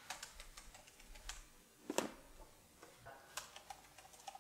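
Faint, scattered clicks of a computer keyboard being typed on in short irregular taps, the sharpest about two seconds in.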